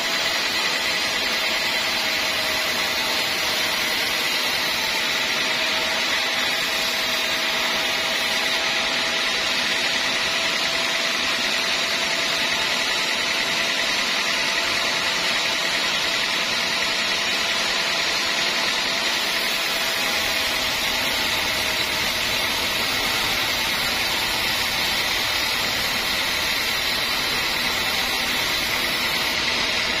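Large sawmill band saw running and ripping its blade lengthwise through a thick old teak beam: a steady hiss with a high whine, even throughout, with a little more low rumble from about two-thirds of the way in.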